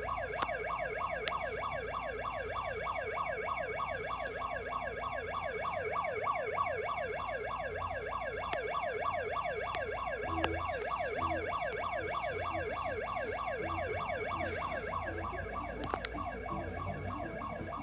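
Emergency alert alarm tone: a siren-like tone sweeping rapidly down in pitch, repeating several times a second, with a couple of sharp clicks. Faint low pulses join it about ten seconds in.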